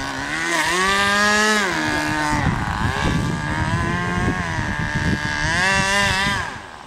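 Radio-controlled model boat's small engine running at speed, its pitch climbing as it is throttled up about half a second in, easing off midway, then revving up again and dropping away near the end.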